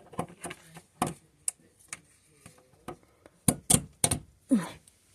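Sharp clicks and knocks from handling a lamp's plug and cord while it is plugged into a wall socket, loudest in a quick cluster about three and a half seconds in.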